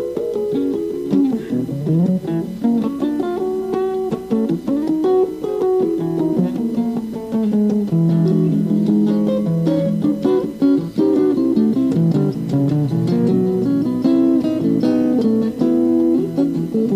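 Guitar playing an instrumental passage of single notes and chords, with a couple of sliding notes about a second in.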